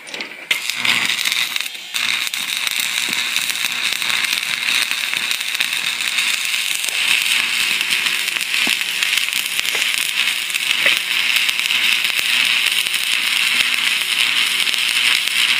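Stick-welding arc from a 6013 electrode, crackling steadily as a bead is laid on a steel snowmobile ski wear bar. The arc catches about half a second in, drops out briefly near two seconds, then burns on without a break.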